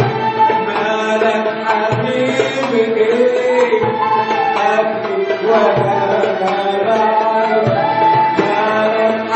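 Live Middle Eastern band music: an instrumental passage with a gliding melody line over percussion strokes.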